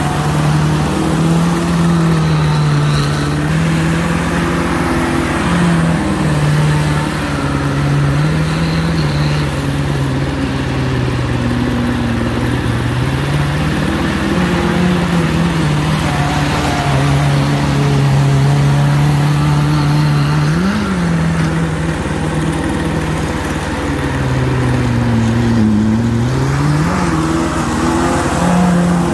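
Suzuki Samurai's engine held at high revs while it does burnouts, spinning its tyres. The pitch holds steady for stretches and dips and climbs again several times.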